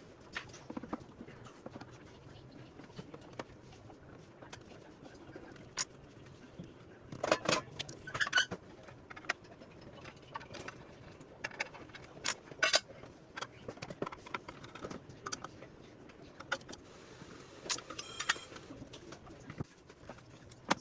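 Irregular clicks, clinks and knocks of tools and small hard parts being handled during a UPS battery replacement, with a burst of louder clatters about seven to eight seconds in.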